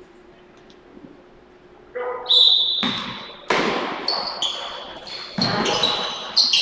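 A basketball bouncing on a hardwood court, with sneakers squeaking as play resumes. Both start about two seconds in after a quiet stretch and carry on as a string of sharp knocks and short high squeaks.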